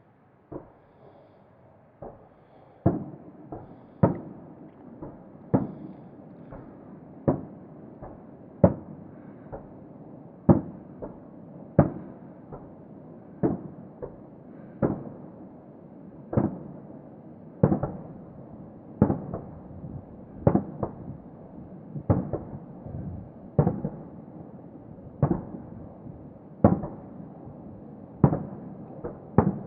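Distant fireworks shells bursting, a steady run of sharp bangs about one every second and a half, each trailing off in an echo.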